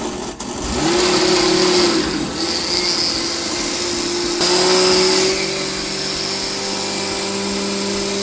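Countertop blender switched on and puréeing boiled tomatoes, onion and garlic with water for a green sauce; the motor climbs to a steady high speed within the first second and runs on steadily.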